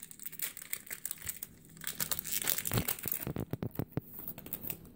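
Foil wrapper of a Pokémon card booster pack crinkling as it is torn open by hand, with a run of sharp crackles in the second half.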